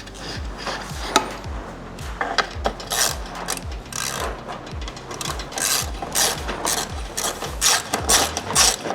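Background music with a steady beat, over short scraping and ratcheting sounds of a bicycle pedal being threaded and tightened into the crank arm.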